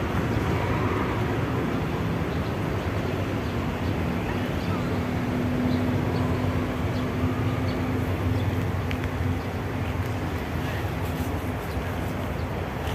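Steady low outdoor rumble, with a low hum that swells and fades in the middle.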